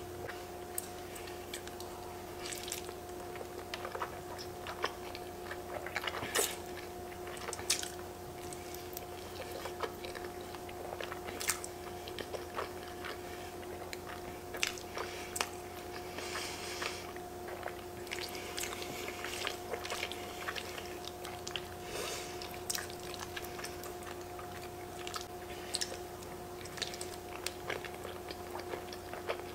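A person chewing and slurping forkfuls of fettuccine alfredo, with many short wet mouth smacks, over a steady hum.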